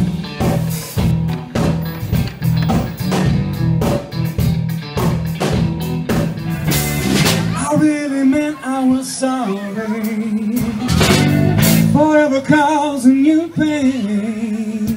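Live band music: a funky groove of busy drum kit hits over a repeating bass line. About halfway through it changes to a slower blues number led by electric guitar and singing.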